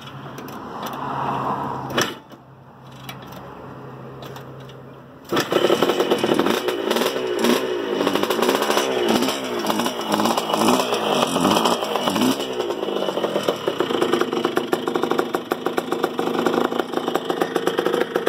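1977 Honda CR125 Elsinore's air-cooled two-stroke single firing up about five seconds in, after a few quieter knocks and a click. It is blipped up and down on the throttle for several seconds, then settles into a steady fast idle. This is a first start on fresh fuel after long storage.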